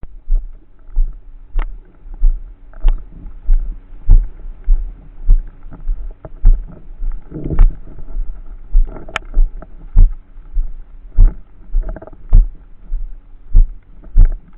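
Muffled low thumps at a steady walking pace, about three every two seconds, picked up through the waterproof hard case of a worn Midland XTC-205 action camera, with faint rustling between them.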